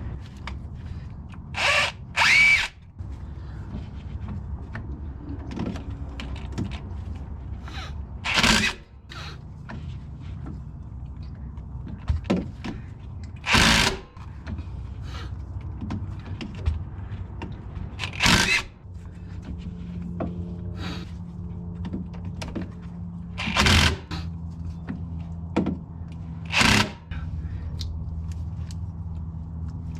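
Impact wrench run in short bursts, about seven over the span, two of them close together near the start, undoing the CV joint bolts to disconnect an air-cooled Porsche 911's rear axle. A steady low hum runs underneath.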